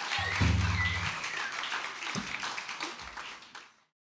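Audience applauding. A brief low hum sits under the clapping for about the first second, and the applause fades out near the end.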